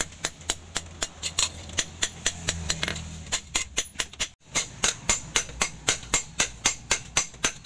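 Hand hammer striking a leaf-spring-steel cleaver blade on a round steel anvil: rapid, even metal-on-metal blows, about four a second, with a brief pause a little past four seconds in.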